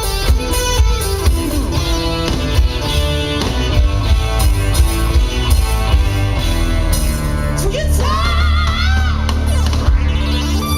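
Loud music with a heavy, steady bass and a run of changing notes; about eight seconds in, a wavering, gliding melody comes in over it.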